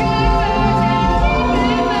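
Music from a live stage musical: singing voices over continuous backing music, with long held notes.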